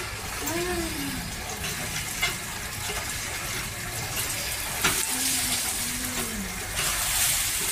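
Water splashing and running over a wet concrete floor as water is poured from a metal pot over seated people, with a few sharp splashes and a louder stretch of pouring near the end.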